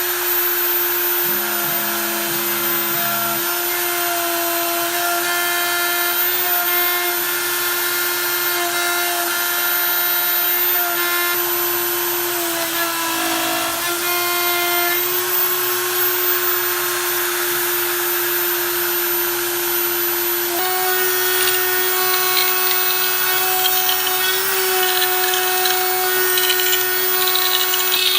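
Kress 800 spindle on a Stepcraft desktop CNC router running steadily, milling HDPE plastic with an up-cut plastic bit. It gives a steady high whine with fainter tones coming and going, and rises slightly in pitch about twenty seconds in.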